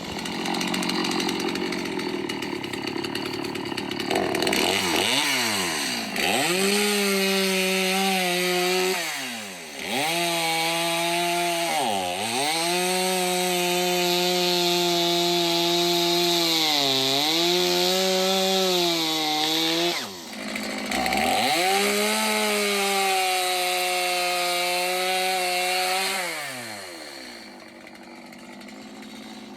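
Stihl two-stroke chainsaw running at high revs through a cut in a tree. Its pitch sags several times as the chain bogs in the wood, then it winds down near the end.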